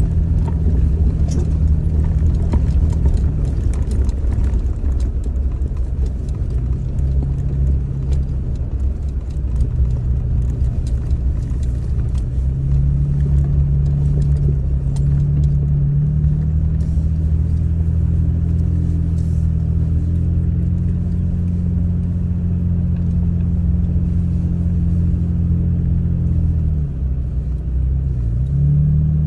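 Vehicle engine and tyres on a dirt trail, heard from inside the cab: a steady low engine hum with a strong rumble, its pitch dropping and picking back up a few times as the throttle changes. Scattered clicks and rattles, mostly in the first ten seconds.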